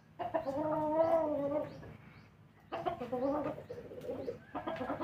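A chicken making two long, wavering calls, the first starting just after the beginning and the second about halfway through.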